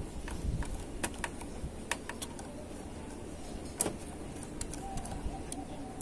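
Screwdriver working a screw at the sheet-metal drive cage of a Lenovo ThinkCentre M73z all-in-one PC, giving a dozen or so light, irregular clicks and taps. The screw is not catching, which the worker puts down to it being the wrong screw.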